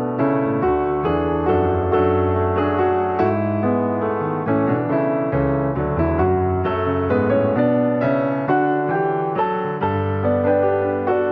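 Piano music: several notes and chords struck each second and left to ring.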